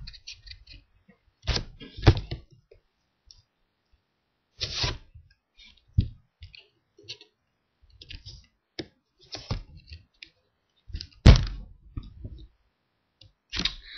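Close-up banging: a series of irregular thumps and knocks, the loudest about eleven seconds in, with quiet gaps between them.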